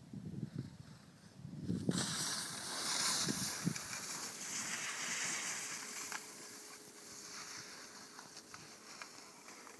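Skis hissing and scraping across firm snow, starting suddenly about two seconds in, loudest while the skier is close and fading as he moves away. Before that, low thumps of wind buffeting the microphone.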